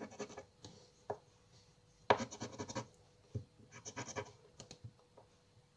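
Scratch-off coating being scraped from a crossword lottery scratch card with a scraper, in three short bursts of rapid strokes with small clicks between them.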